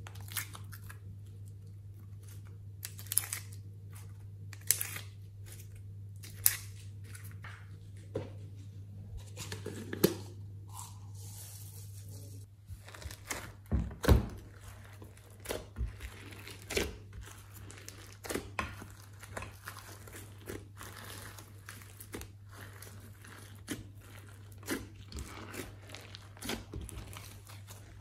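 Glossy slime and clay being pressed and kneaded by hand in a glass dish, with many short irregular crackles and pops from about halfway through. Earlier, a handful of separate clicks as slime is tipped out of plastic cups.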